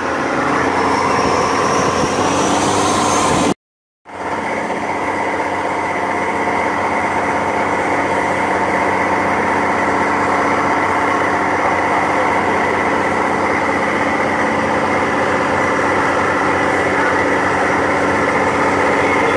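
Boat engine running steadily at cruising speed, with the rush of water from the hull and wake. The sound cuts out completely for about half a second a little over three seconds in, then resumes unchanged.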